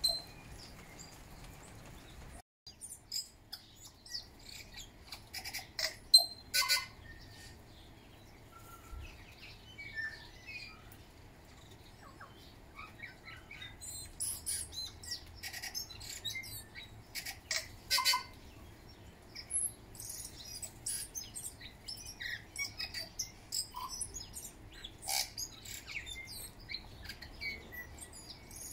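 Tui calling: a scatter of short high chirps and whistled notes mixed with sharp clicks, several of them loud.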